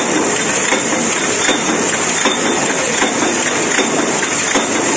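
Small automatic press machine in needle-bearing production running steadily: a dense, even mechanical noise with faint regular knocks about every three-quarters of a second.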